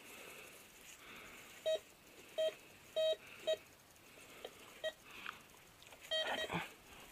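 Metal detector's target tone: about six short beeps of one steady pitch, some longer than others, as the search coil sweeps over buried metal.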